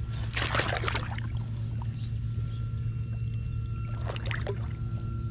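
Water splashing and pouring off a wet cast net as it is hauled in by hand, in two bursts: one about half a second in and a shorter one about four seconds in. A steady low hum runs underneath.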